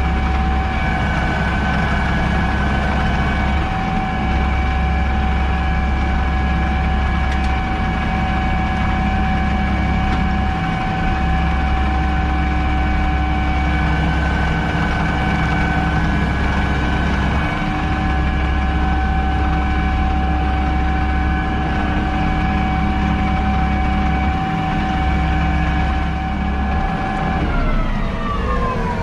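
Fendt 828 Vario tractor running steadily under load, heard inside its cab, a deep engine hum with a steady whine of several high tones above it. Near the end the whine and hum slide down in pitch together as the machine slows.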